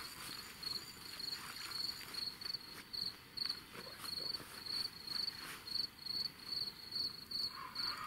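Cricket chirping: a steady run of short, high-pitched chirps, about two a second.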